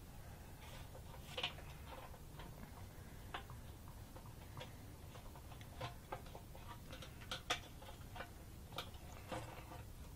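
Irregular faint clicks and small knocks from handling a Harley-Davidson fuel pump and filter assembly: its metal mounting plate, plastic parts and fuel hose knock and click as it is worked into the fuel tank. The two louder clicks come about a second and a half in and again near the middle of the second half.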